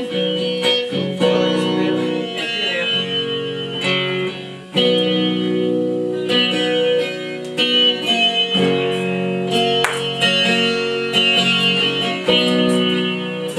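Steel-string acoustic guitar being played, chords struck and left to ring with picked notes between.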